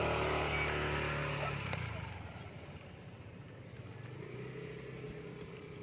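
A motorcycle engine passing by on the dirt road, its steady note fading away over the first two seconds. A single sharp click comes just before two seconds in.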